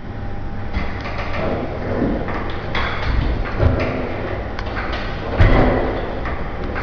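Seated leg extension machines in use, their weight stacks and pivots clanking and sliding over a steady low hum, with a few sharp knocks, the loudest about three and a half and five and a half seconds in.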